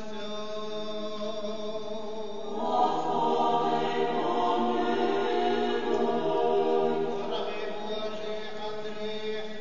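Eastern-rite liturgical chant: one voice holds a steady sung note, then a choir joins in and the singing grows louder and fuller from about two and a half seconds in, falling back to the single held note a little before the end.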